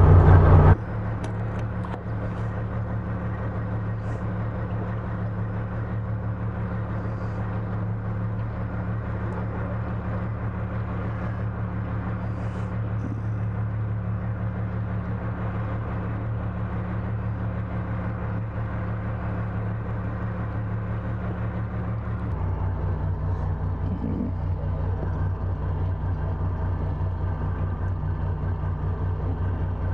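Steady low mechanical hum from a yacht's running onboard machinery. About 22 seconds in, its tone shifts and it grows slightly louder.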